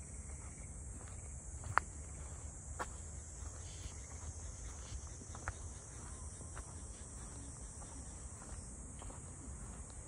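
Crickets trilling steadily and high, over a low rumble. A few sharp clicks come through, the loudest about two seconds in.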